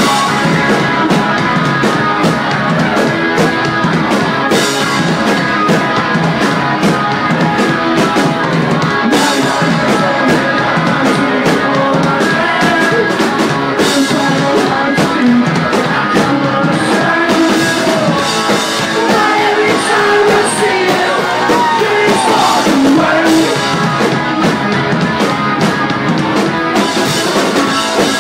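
Live rock band playing loud, with electric guitar, drums and a male lead vocal singing over them.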